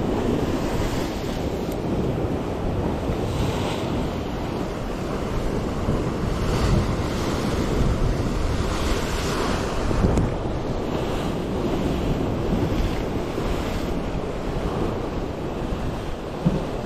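Sea waves washing against shore rocks, swelling and easing every few seconds, with wind buffeting the microphone.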